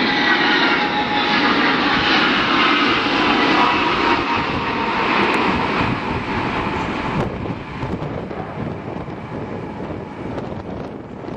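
Il-76M transport plane's four turbofan engines running loud, their whine falling steadily in pitch. About seven seconds in the whine cuts off abruptly, leaving a quieter rough rumble.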